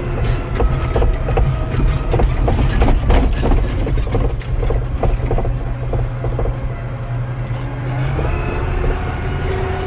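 New Holland 7840's six-cylinder diesel engine running steadily under light load as the tractor reverses, heard from inside the cab, with a run of short clicks and knocks in the first half.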